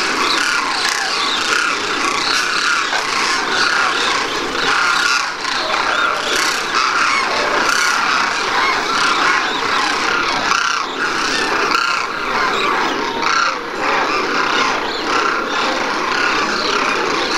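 A large flock of demoiselle cranes calling: a dense, unbroken chorus of many overlapping honking calls.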